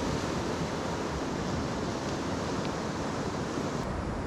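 Steady noise of sea surf and wind on an open coastline, with a low rumble of wind buffeting the microphone.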